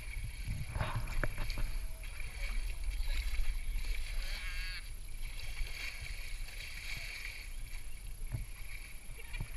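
River water splashing and sloshing as hands scoop it up and throw it over an elephant's back, over a steady low rumble.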